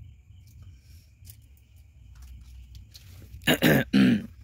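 Two short, loud bursts of a person's voice about three and a half seconds in, over a low steady hum and a faint high steady tone.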